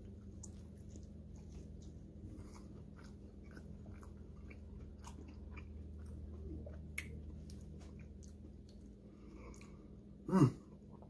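A man chewing mouthfuls of chicken wing coated in buffalo sauce, a run of small crunching and wet clicking sounds. A brief hum of his voice falls in pitch about ten seconds in.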